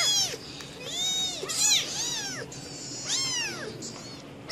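Young kittens mewing over and over, high thin cries that rise and fall in pitch, roughly two a second, some overlapping at different pitches.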